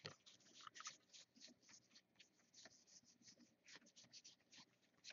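Faint, irregular ticks and rustles of trading cards being flipped through and slid against one another by hand.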